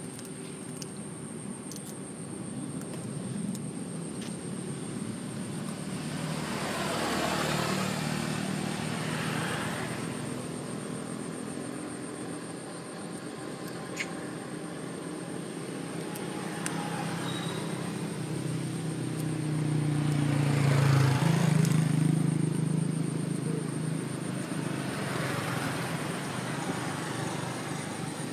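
Motor vehicles passing one after another, the engine and road noise swelling and fading several times, loudest about two-thirds of the way through.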